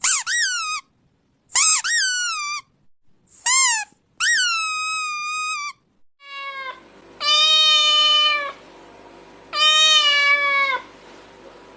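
Cat meowing repeatedly: several short, high meows that fall in pitch, then from about halfway two longer, drawn-out meows over a faint steady hum.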